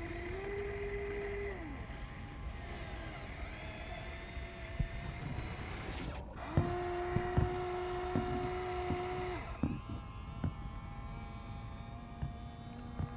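Huina 1593 RC excavator's small electric motors whining as the arm and bucket move. The whine rises, holds steady and falls away twice: once over the first two seconds, and again from about six and a half to nine and a half seconds in. Scattered clicks and knocks run through it.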